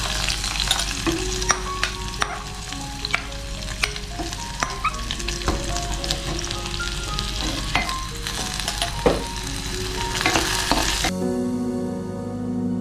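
Chopped ginger and garlic sizzling in hot coconut oil in a pan, with the sharp clicks and scrapes of a spoon stirring them. The sizzle cuts off abruptly near the end.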